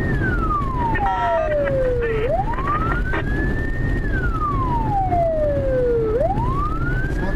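Police siren wailing in a slow rise and fall, climbing for about two seconds and falling for about two, about twice through. Underneath runs the steady rumble of the pursuit cars driving.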